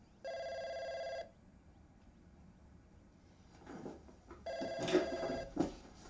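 Home telephone ringing twice with a trilling electronic ring. Each ring lasts about a second, the second starting about four seconds after the first. Some knocks and rustling come around the second ring.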